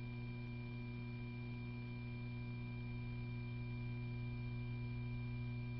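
Steady electrical mains hum on an old film soundtrack: a low hum with a few fainter, higher steady tones above it, and nothing else.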